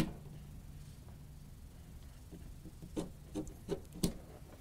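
A sharp click, then a few soft knocks and clicks about three to four seconds in: a connector and cable being handled against a computer's rear-panel ports.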